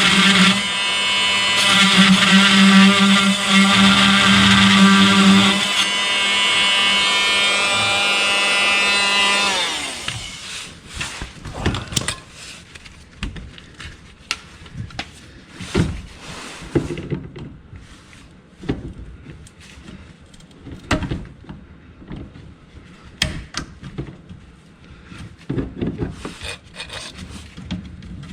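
An electric motor runs steadily, then spins down and stops about ten seconds in, its pitch falling as it slows. After it stops come scattered clicks and knocks of hand tools and parts being handled.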